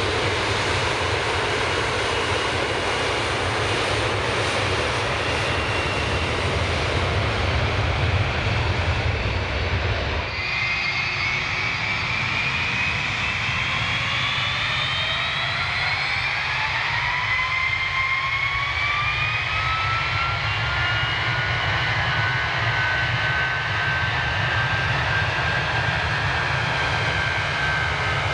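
Jet airliner engines at high power, a loud, steady noise with a deep rumble. About ten seconds in, this gives way abruptly to another jetliner's turbofans spooling up: several whines rise together in pitch, then level off into a steady high whine.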